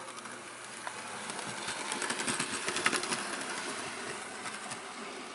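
Hornby OO gauge LNER W1 'Hush Hush' model locomotive running along model railway track. Its electric motor whirs steadily over rapid small clicks from the wheels on the rails. The sound grows louder as it comes near, is loudest about three seconds in, then eases slightly.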